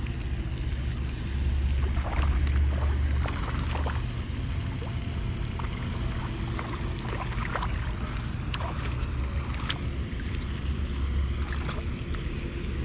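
Wind buffeting the microphone: a steady low rumble that swells twice, with scattered light clicks and taps over it.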